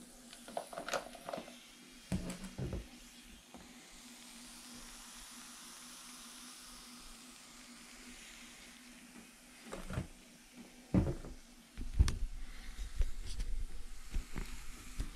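Plastic bottle and silicone tubing being handled and set down on a bathtub rim, giving a few sharp knocks and taps near the start and again near the end, with a faint steady hiss in between.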